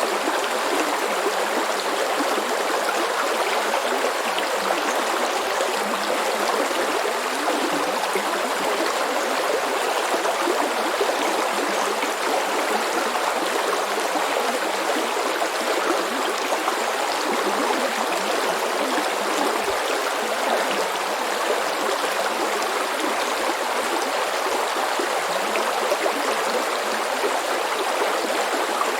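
Small brook flowing steadily over stones, a constant babbling and gurgling of running water.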